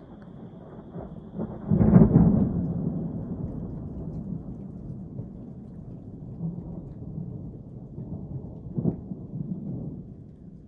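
Thunder: a rumble builds into a loud crack about two seconds in, then rumbles on and slowly fades, with a second, smaller crack near the end.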